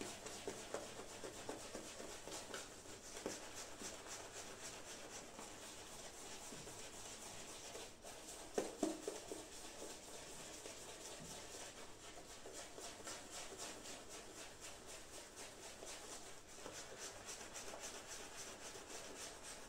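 Faint, quick, rhythmic swishing of a synthetic shaving brush rubbing lather over stubbled skin during face-lathering. One brief louder bump comes about nine seconds in.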